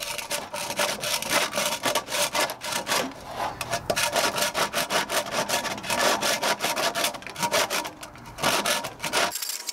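Small Stanley hand plane shaving a wooden 4x4 beam in quick repeated strokes, about two or three a second, smoothing the rough surface left by kerf cuts.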